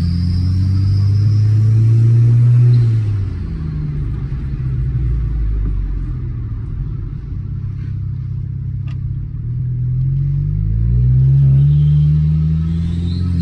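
Audi A4's turbocharged four-cylinder TFSI engine and exhaust running under load: the engine note drops about three seconds in, holds lower, then climbs again from about ten seconds, with a faint high whine at the start and near the end. The downpipe leak has been sealed, so no exhaust leak is heard.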